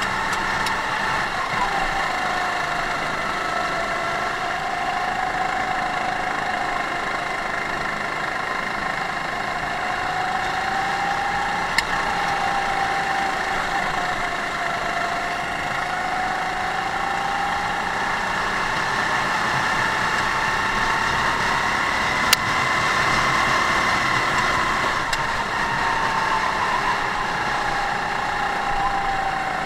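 Onboard sound of a Sodi rental kart's four-stroke engine running hard on track, its note swelling up and down in pitch as the kart slows for corners and accelerates out of them. Two short sharp clicks, about twelve seconds and twenty-two seconds in.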